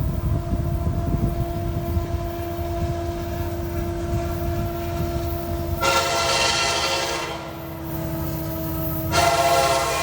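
Diesel locomotive horn sounding in loud blasts about six seconds in and again about nine seconds in, over the steady low rumble of a train on the move.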